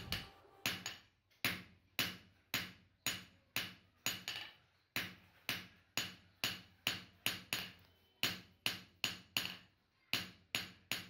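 Hand hammer beating an iron Kutch cattle bell (ghantadi) on a small anvil, steady strokes about two a second, each a sharp metallic strike with a brief ring.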